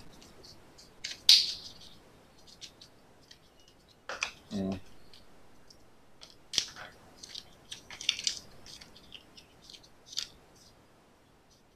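Rustling, crinkling and light clicks of packaging as hands unwind Apple's Lightning EarPods from their cable holder, in scattered short spells, the loudest crinkle about a second in.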